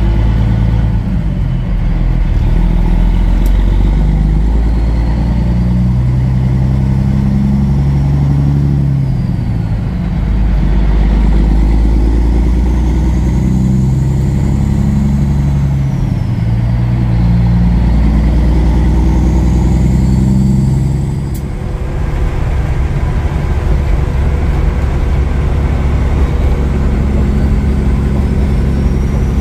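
Kenworth W900 semi truck's diesel engine pulling away and accelerating through the gears, its pitch climbing and then dropping back at each of several shifts, then running steadily at road speed for the last few seconds.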